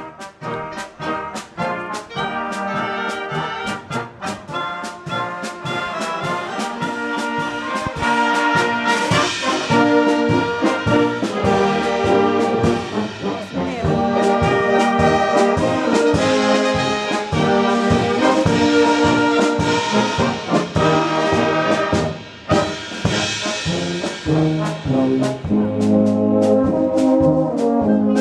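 Bohemian-style brass band (Böhmische Blasmusik) playing live: trumpets and trombones over a steady beat. The band grows louder about eight seconds in and briefly drops back near the end of the phrase around two-thirds through.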